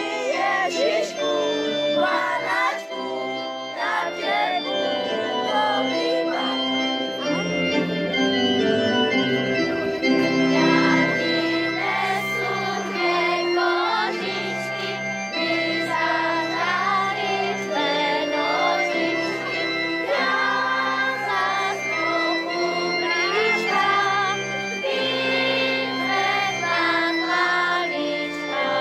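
A large group of schoolchildren singing together, accompanied by an electronic keyboard holding long sustained chords.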